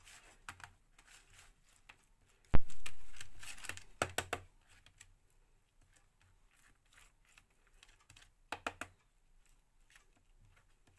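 A fork scraping and tapping against a ceramic plate while spreading mayonnaise over an egg-coated roti, in scattered small clicks. There is one sharp knock about two and a half seconds in, the loudest sound in the clip, and a few quick clicks around four seconds and near nine seconds.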